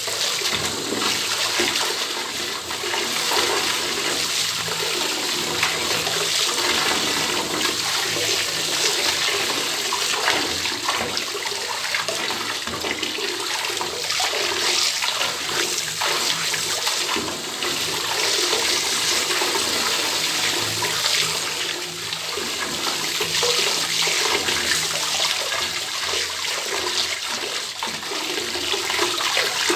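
Water pouring steadily from an open tap into a bathtub, an even splashing flow.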